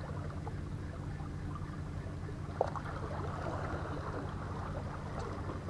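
Steady low engine drone, like a boat's engine running, under a soft rushing wash, with one sharp click about two and a half seconds in.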